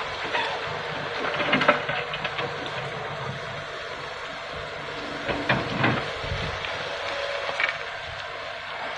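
Komatsu PC200 excavator's diesel engine running steadily, with several sharp clanks, the loudest about two seconds in and more in the second half.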